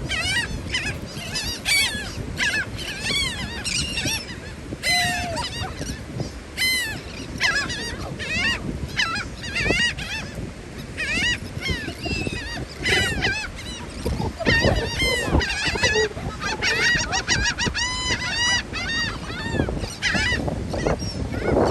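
A flock of gulls calling constantly, many short, arched cries overlapping one after another as they crowd in for thrown bread.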